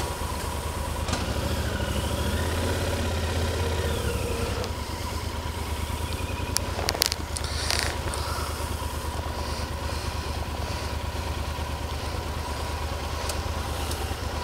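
Yamaha Super Ténéré's parallel-twin engine running at low speed. Its note rises about a second in, holds, then drops back to a steady low pulse near the fifth second, with a few sharp clicks about seven seconds in.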